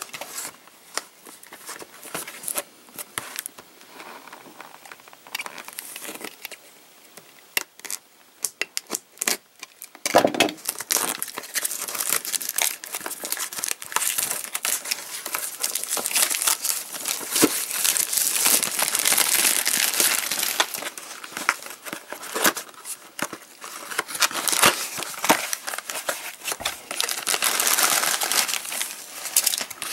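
Plastic packaging being torn open and handled: scattered crackles at first, then continuous crinkling and rustling of plastic wrap from about ten seconds in.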